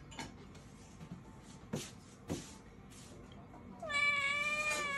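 A domestic cat gives one long meow near the end, holding its pitch and dropping at the close. Two light knocks come about two seconds in.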